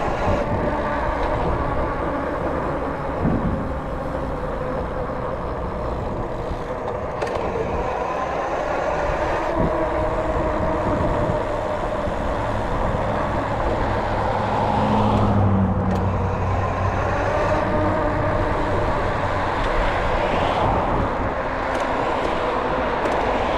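Road traffic running steadily, with one vehicle passing close and louder about fifteen seconds in.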